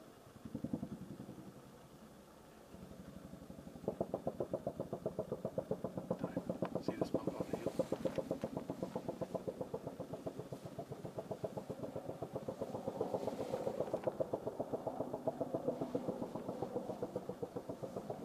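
AH-1Z Viper attack helicopter in flight, its rotor blades beating in a fast, steady rhythm that grows louder about four seconds in. A brief louder sound comes about a second in.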